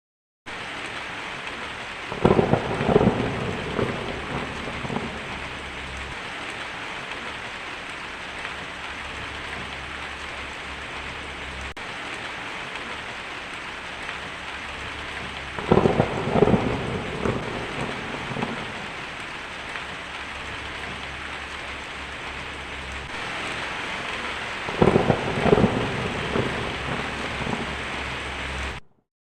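Heavy rain falling steadily on a tin roof, with three rolls of thunder, each rumbling for a few seconds: one shortly after the start, one about halfway, and one near the end. The rain cuts off suddenly just before the end.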